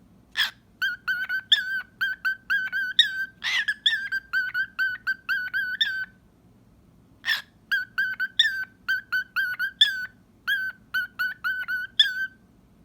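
Cockatiel making a few kissing smacks and long runs of short, quick whistled chirps, about four a second, with a pause in the middle.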